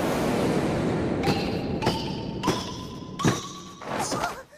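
Cartoon sound effects of a person and a stack of parcels tumbling down a stairwell: a rush of clattering noise, then four separate thuds roughly half a second to a second apart, each leaving a short ringing tone.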